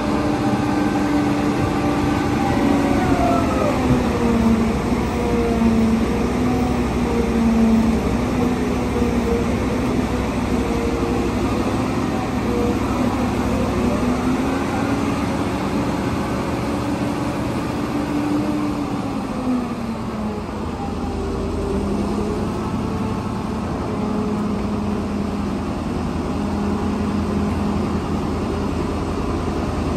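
Diesel engine of a large Caterpillar wheel loader running under load. Its pitch rises and falls several times as the loader scoops coal and lifts its bucket.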